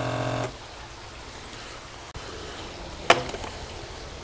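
A FoodSaver vacuum sealer's pump hums steadily, then cuts off abruptly about half a second in when the seal button is pressed. A small click follows near the middle, and a sharp snap a little after three seconds as the lid is unlatched and opened.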